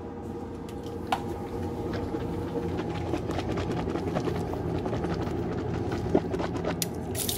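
A person gargling a mouthful of diluted Betadine mouth rinse, a steady rough gurgle, then spitting it into the sink near the end.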